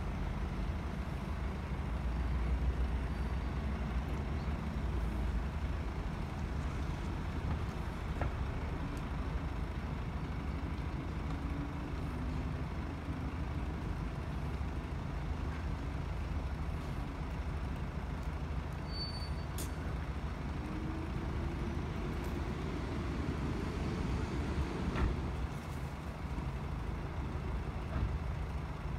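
Steady low rumble of road vehicles idling and passing. A louder engine sound swells with a rising note for a few seconds about three-quarters of the way through, then fades.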